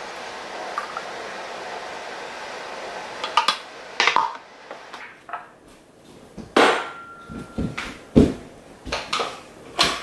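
Green juice pouring from a blender jug into a glass mason jar, a steady hiss. It is followed by a series of clinks and knocks as the glass jars are set down on a stone countertop and their plastic lids are handled and closed.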